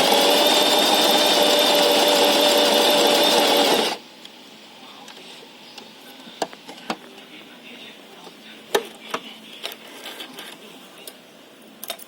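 Portable electric sewing machine running fast at a steady speed, with a fine rapid rhythm of stitches, then stopping abruptly about four seconds in. A few light clicks and taps follow.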